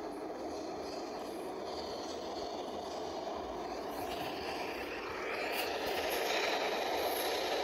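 Subway train approaching through the tunnel: a steady rumble that grows louder from about five seconds in, with faint high squeals midway.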